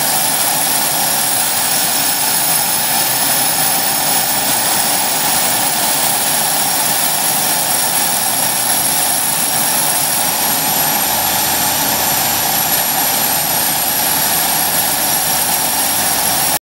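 Comp Air 7SLX's turbine engine running steadily with its Avia V510 propeller turning: a loud, even rush of propeller and engine noise with a high, steady turbine whine over it.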